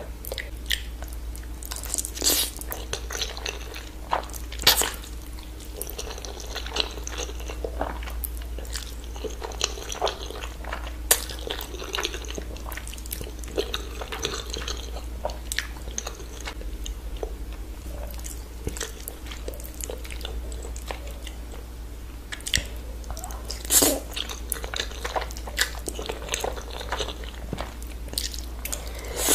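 Close-miked eating: chewing and wet, sticky mouth sounds from a mouthful of saucy noodles slurped off a fork, with sharp crunching bites at a few moments, loudest about five seconds in and near the end. A steady low hum runs underneath.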